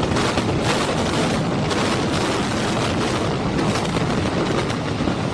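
Brick high-rise apartment block collapsing in a controlled implosion: a steady, dense rumble of falling masonry that holds at one level, with faint scattered cracks in it.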